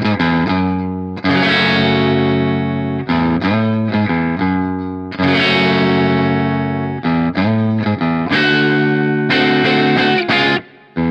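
Electric guitar played on its neck pickup: a run of chords, each let ring for a second or two, with quick changes between them. A short break comes near the end before the playing starts again.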